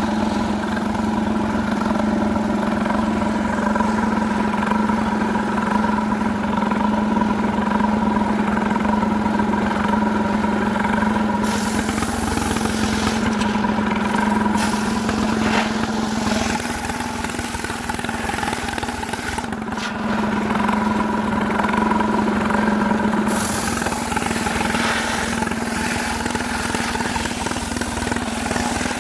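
Stihl chainsaw running at a steady high speed, holding one even pitch. A hiss rises over it from about a third of the way in for some ten seconds, then drops away.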